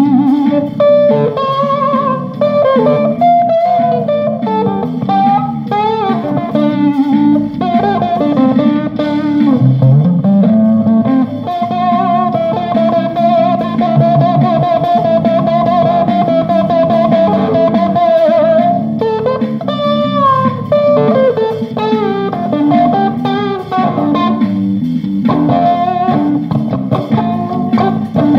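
Guitar jam with a blues feel: melodic lead lines over a steady, low rhythmic part, with one long wavering note held for about six seconds near the middle.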